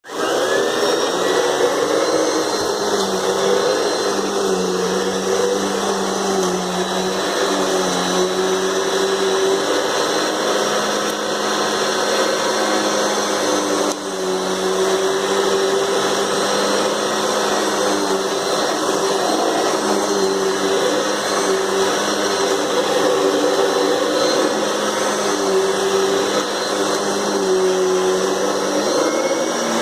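Vacuum cleaner motor running with a steady whine, its pitch rising for a moment as it comes up to speed at the start and wavering slightly as the load changes, with a brief dip about halfway through.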